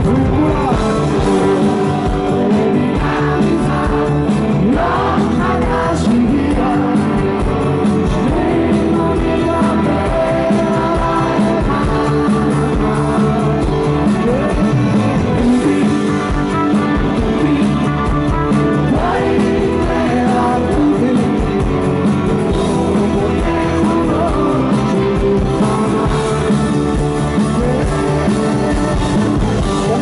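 Live rock band playing loud through a PA system, heard from among the audience: a male vocalist singing over electric guitar and a steady beat.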